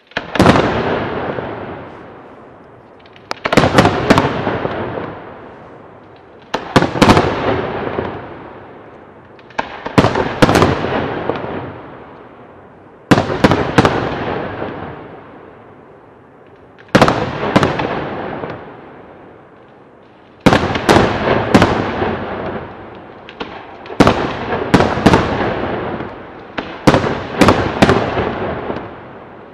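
Aerial firework shells bursting, a sharp bang every three to four seconds, often two or three in quick succession, each trailing off in a rumble that fades over a couple of seconds. From about two-thirds of the way in, the bangs come thicker and closer together.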